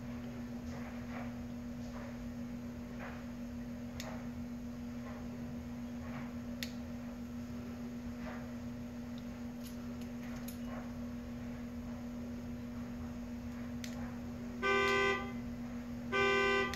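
A steady low hum, then near the end two short car-horn honks about a second apart.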